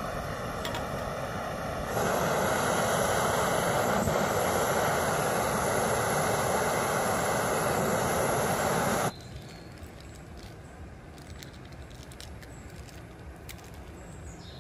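Small canister-top gas camping stove burning under a pot of water, a steady hiss. It grows louder about two seconds in, then drops suddenly about nine seconds in to a quieter hiss with a few faint clicks.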